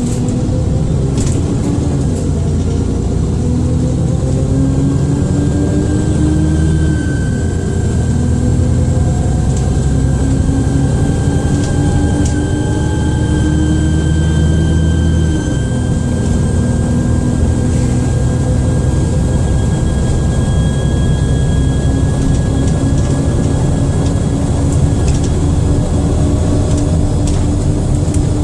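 Dennis Trident II / Alexander Dennis Enviro400 double-decker bus under way: the diesel engine note climbs and drops back about six seconds in and again about fifteen seconds in, then holds. A thin, high turbocharger whine runs above it.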